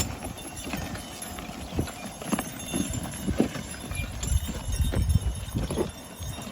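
Belgian draft horses walking, their hooves thudding and clopping irregularly on the ground.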